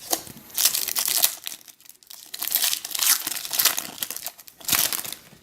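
The wrapper of a 2016 Panini Contenders Draft Picks card pack being torn open and crinkled by hand, in several crackly bursts with short pauses between them.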